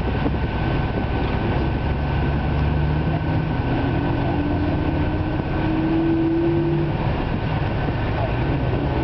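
Tour bus engine and road noise heard from inside the moving bus: a steady low rumble, with a faint hum rising a little in pitch about halfway through.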